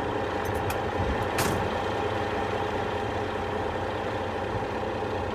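Heavy tow truck's engine idling steadily, with a few faint ticks and one short, sharp sound about a second and a half in.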